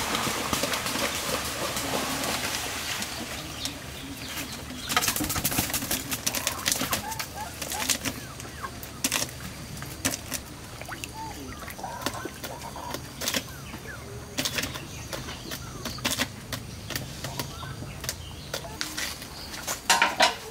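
Chickens in a coop flapping their wings and shuffling, with a few short calls. A dense rustle comes in the first few seconds, then scattered flaps and clicks.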